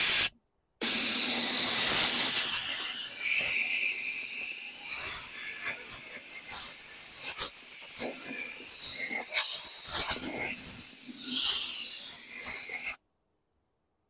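A long hissing blast of spray cleaning out a mower carburetor, after a brief spurt at the start. It is strongest in the first couple of seconds, then wavers with small spattering crackles, and cuts off suddenly near the end.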